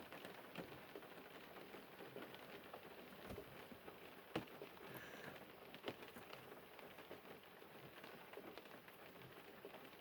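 Near silence: faint room tone with scattered small clicks and rustles, a few sharper ticks about three, four and a half and six seconds in.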